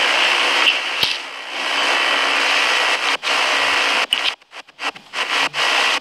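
Steady hiss of noise on a phone's live-stream audio, broken by several brief dropouts in the second half.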